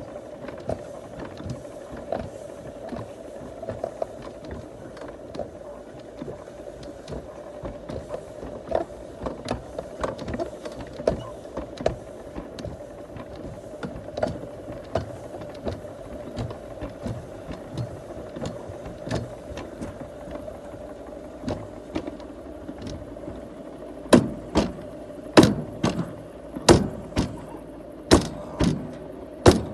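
Mountain rack railway train running: a steady motor hum with scattered clicks and rattles, then near the end a run of loud regular clunks, about one and a half a second.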